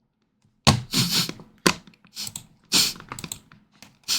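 Computer keyboard clattering: about seven irregular bursts of key presses.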